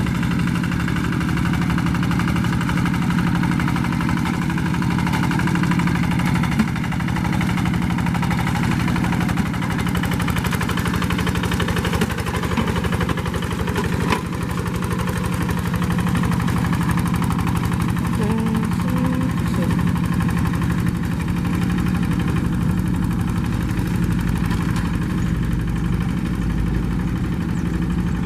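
Rice-field hand tractor's engine running steadily with an even, rapid firing beat, with a couple of brief knocks.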